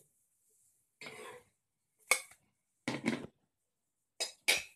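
Spatula scraping under a cooked roti on a tawa, then several sharp clinks and knocks of kitchen utensils and a dish as it is moved to a plate. The scrape comes about a second in; the clinks come singly and in small clusters around two and three seconds in and near the end.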